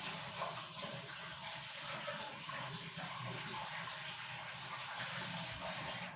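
Water running steadily from a tap, shut off suddenly at the end.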